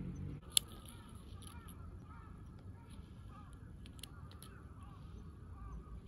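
Distant bird calls over a steady very high background tone, with one sharp click about half a second in and a few fainter clicks around four seconds.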